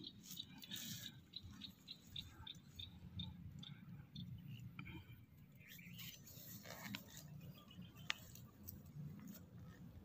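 Faint rustling and scattered small clicks of an air rifle being handled and brought up to aim in dry grass, with one sharper tick about eight seconds in; otherwise close to silence.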